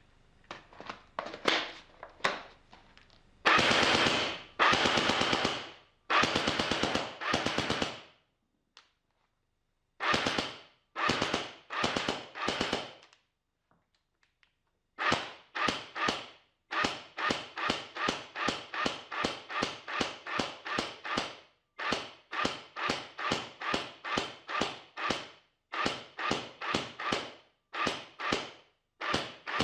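ASG CZ Scorpion EVO 3 A1 airsoft electric gun firing on full auto, its rapid shots running together. A few short bursts come first, then three long bursts of a second or two each and a pause of about two seconds. After that come many short bursts in quick succession.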